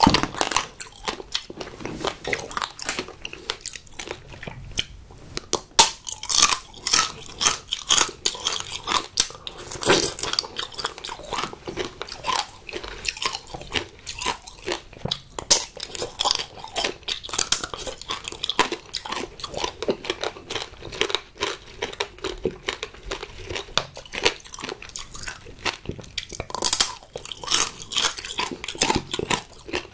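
Close-miked chewing of strawberry tanghulu: the hard candied-sugar shell cracks and crunches between the teeth in quick, irregular crackles, over the softer chewing of the fruit.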